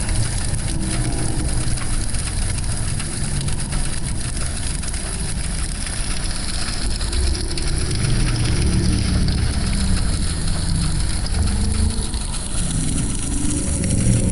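Fire sound effect: flames burning with a steady low rumble that swells and eases, under a crackling hiss.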